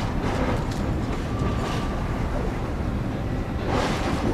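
Steady low rumble of a ship's engines, with a rushing noise that swells briefly three times.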